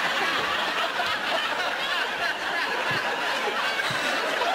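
Studio audience laughing, a steady wash of crowd laughter that broke out suddenly and keeps going.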